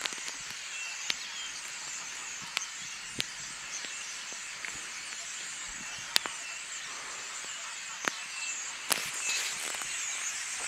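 Outdoor ambience: a steady high hiss with faint wavering chirps in it, broken by about six sharp clicks scattered through.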